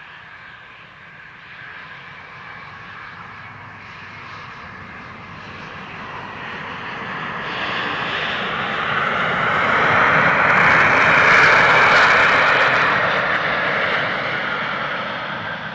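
Embraer E-jet regional airliner's twin turbofan engines on the landing roll, swelling into reverse thrust: a broad jet rush that builds through the first half, is loudest past the middle, then dies away near the end.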